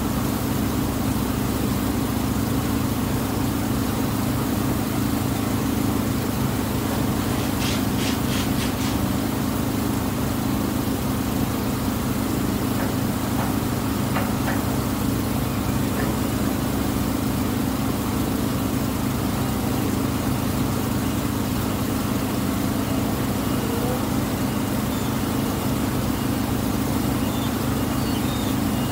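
The Tuula II water bus's engine running steadily, a constant low drone. A quick run of clicks about eight seconds in.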